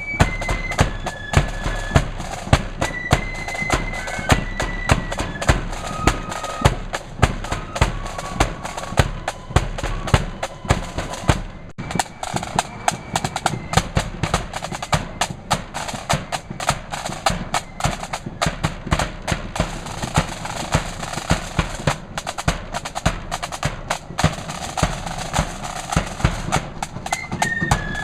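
Marching flute band playing, with a flute melody over snare and bass drums. Just under twelve seconds in, the music breaks off abruptly and a new piece begins. The drums carry on with little melody until the flutes come back near the end.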